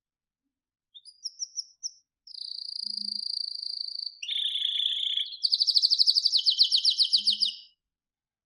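Canary singing: a few short high chirps, then a string of rapid rolling trills that shift down in pitch from phrase to phrase. The last roll, fast and loud, stops near the end.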